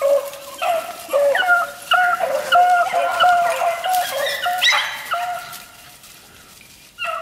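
Beagles yipping and baying in quick, short, high notes, about three a second, as they close on a swamp rabbit that has crawled into brush. The yipping dies away about five seconds in, and one short yelp comes near the end.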